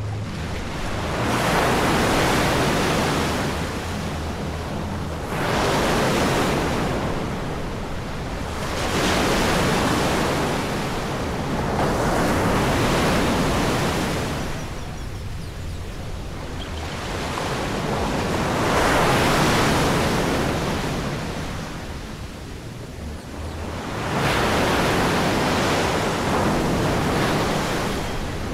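Ocean surf breaking and washing up a beach, about six waves that each swell and fade over a few seconds.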